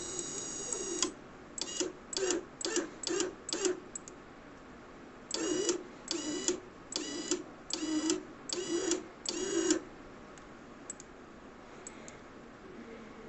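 Small electric motor of a PLC-controlled conveyor training unit whining as it runs, stopping about a second in. It then starts and stops in short pulses: five quick ones about half a second apart, then six longer ones that rise and fall slightly in pitch as they start and stop.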